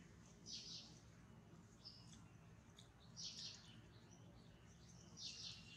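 Three faint, short, high-pitched squeaky animal calls, about two and a half seconds apart, over low background hiss.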